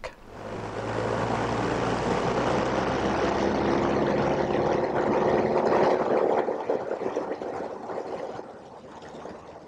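Cessna 172's four-cylinder piston engine and propeller running at about 2,100–2,250 rpm for a propeller-balancing run-up, heard from inside the cabin. The propeller is measurably out of balance, at about 0.5 inches per second of vibration. The steady drone builds up over the first second and dies away over the last few seconds.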